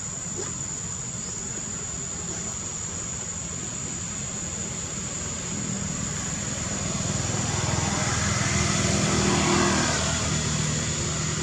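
A motor vehicle passing: a steady engine-like rumble that grows louder about six seconds in, peaks near ten seconds and then eases off, over a constant high thin whine.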